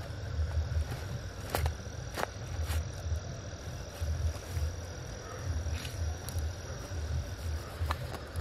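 A cricket trilling steadily at a single high pitch, stopping near the end, over a low uneven rumble. A few light clicks sound now and then.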